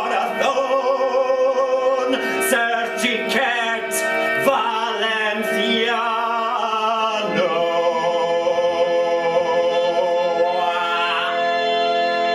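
Music with a singing voice holding long, wavering notes over sustained instrumental tones.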